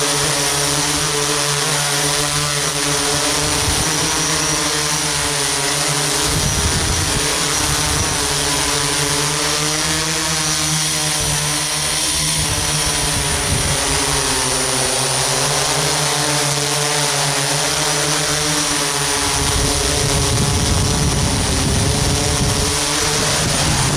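Multicopter's electric motors and propellers buzzing steadily in flight, a stack of tones wavering up and down together, with a constant high whine above. A low rumble swells about six seconds in and again in the last few seconds.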